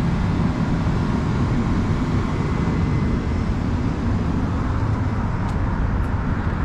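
A moving train running with a steady low rumble and no changes.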